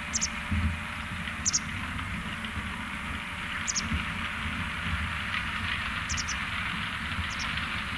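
ROPA Maus 5 sugar beet cleaner-loader working at a distance: a steady machine rumble under a steady rushing noise, with short high chirps every second or two.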